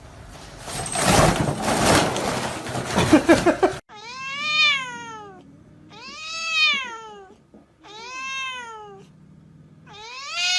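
A loud, harsh noisy sound for about the first four seconds, then a cat meowing four times: long, drawn-out meows about two seconds apart, each rising then falling in pitch.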